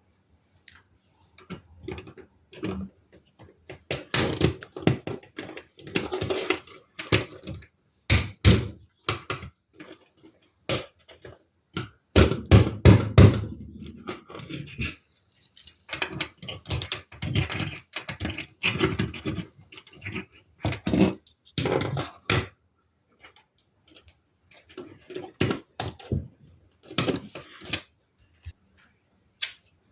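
LEGO Technic plastic parts clattering and clicking as they are handled and pressed together, in irregular spells of rattling with a heavier thud about twelve seconds in.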